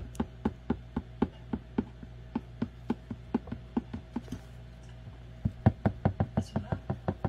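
A steady series of sharp knocks, about four a second, stopping for about a second midway and then resuming.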